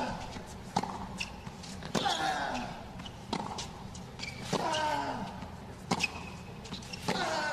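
Tennis rally on a hard court: sharp racket strikes on the ball a little over a second apart, with ball bounces between them. Every other shot comes with a long grunt falling in pitch.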